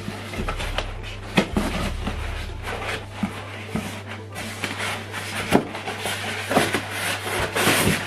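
Cardboard box flaps and a styrofoam packing insert being handled: scraping, rubbing and short knocks as the packing is shifted and lifted out, over a steady low hum.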